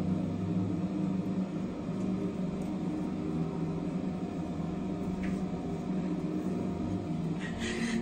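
A steady low mechanical hum with several unchanging tones above it, with a couple of brief faint noises about five seconds in and near the end.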